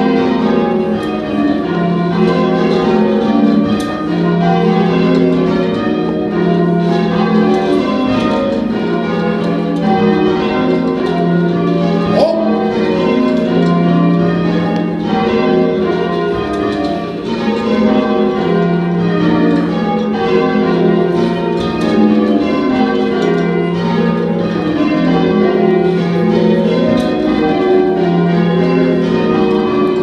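Church tower bells being change rung: a continuous, even run of bell strokes, one bell after another in rhythmic sequence, each ringing on over the next. The bells are heard from the ringing chamber below them, rung by pulling their ropes.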